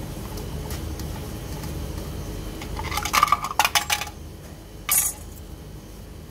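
Small metal screws clinking as they are dropped onto hard paving: a quick cluster of clinks about three seconds in, then one more single clink near five seconds.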